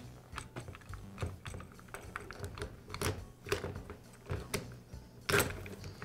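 Small irregular clicks and taps of plastic parts being handled as the drive cable is seated into the drive gear inside an open string-trimmer housing, with one louder knock near the end. Soft background music underneath.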